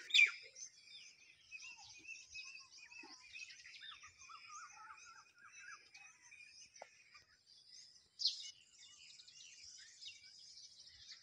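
Small birds chirping continuously, several calls overlapping, with a louder, sharper call just after the start and another about eight seconds in.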